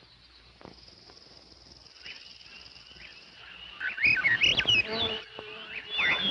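Faint steady insect buzzing, then about four seconds in a burst of loud, rapid chirping and squawking bird calls with quick up-and-down whistles.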